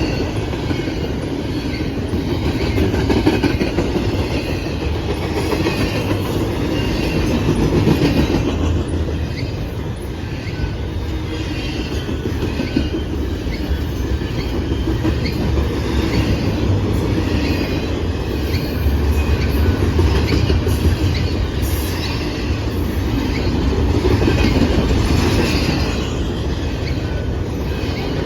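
Freight cars of a CSX double-stack intermodal train rolling past at track speed: a steady rumble of steel wheels on rail that swells and eases as cars go by, with faint wheel squeal.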